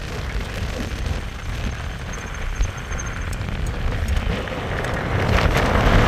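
Wind buffeting the microphone of a camera on a moving bicycle: a continuous low rumble with a hiss over it, growing louder near the end.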